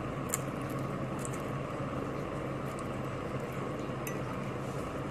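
Steady low room hum with a few faint clicks of a fork against a ceramic plate of noodles.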